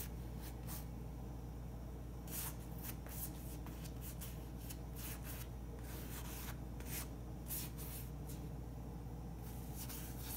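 Short scratchy strokes of a flat paintbrush dragging and dabbing thick paint across stretched canvas, coming in quick groups with pauses between, over a low steady hum.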